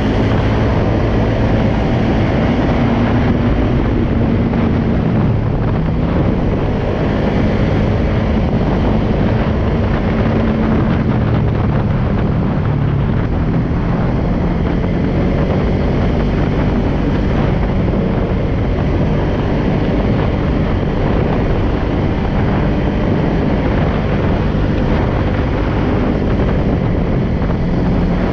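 Polaris Sportsman 570 ATV's single-cylinder engine running while driving, its note rising and falling gently with the throttle, with wind rushing over the microphone.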